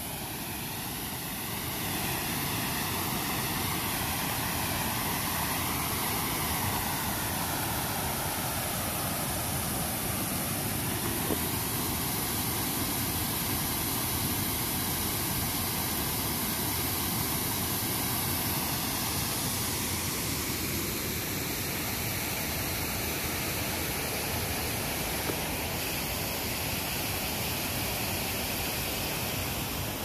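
Steady rush of a creek pouring over low limestone ledges. A faint whoosh sweeps down in pitch over the first ten seconds.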